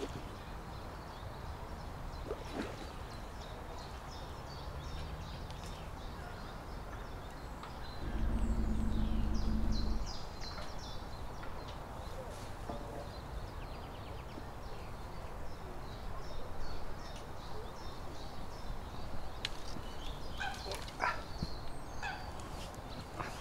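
Outdoor background with small birds chirping, a steady low rumble that swells for about two seconds about eight seconds in, and a few sharp knocks near the end as a landing net is lifted out of the water.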